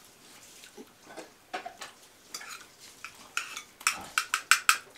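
Metal spoon clinking and scraping against a ceramic bowl of broth: scattered light taps, then a quick run of louder clinks near the end.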